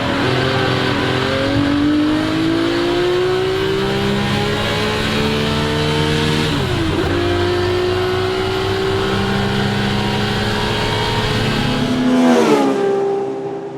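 Ferrari 250 GT SWB's Colombo V12 engine pulling hard under full throttle, its pitch rising through the revs, with a quick gearshift about seven seconds in and a second long climb. Near the end the revs drop sharply as the driver lifts off.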